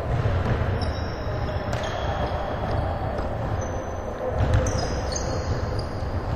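Basketball being dribbled and bounced on a hardwood gym floor, with sneakers squeaking briefly several times as players cut, all echoing in a large hall.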